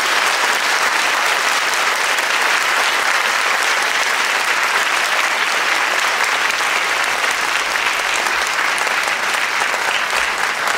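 Crowd applause, dense steady clapping.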